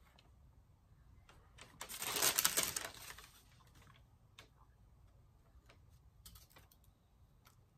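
Small candy decorations being handled: a dense rattle of fine clicks lasting about a second and a half, starting about two seconds in, then scattered light clicks and taps.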